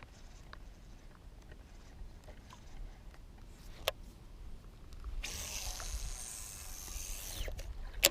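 Baitcasting fishing reel on a cast: a sharp click about four seconds in, then the spool whirrs for about two seconds as line pays out and winds down, and a loud click near the end as the reel is engaged.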